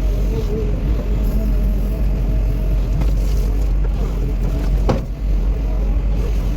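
Engine running steadily with a deep, constant rumble, and a brief sharp click about five seconds in.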